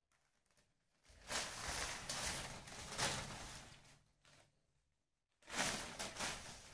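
Rustling and crinkling of a mulmul cotton saree and the newspaper folded inside it as the cloth is unfolded and spread out by hand. The rustling comes in two bouts: the first starts about a second in and lasts about three seconds, and the second begins near the end.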